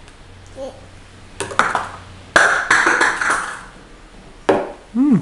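Plastic baby bottle and its cap knocking and tapping on a wooden tabletop several times, with handling noise between the knocks. A toddler gives a short vocal sound near the end.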